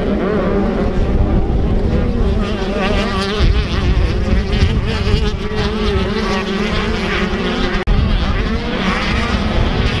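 Several motocross dirt bikes racing past, their engines revving up and down and overlapping, with wind rumbling on the microphone.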